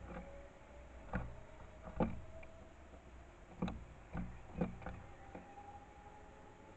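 A house sparrow pecking and hopping on a bird feeder: a series of irregular sharp taps, each with a dull thud carried through the feeder, about eight in five seconds.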